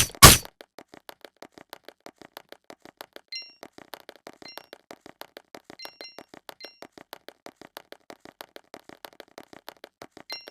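Two sharp, loud hits right at the start, then a rapid, even ticking of about six ticks a second, with short, high electronic-sounding pings now and then, more often near the end.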